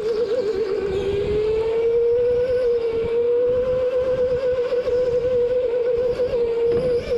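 Go-kart running at speed, heard from onboard: a steady high whine that wobbles in pitch for about the first second, then climbs slightly and holds.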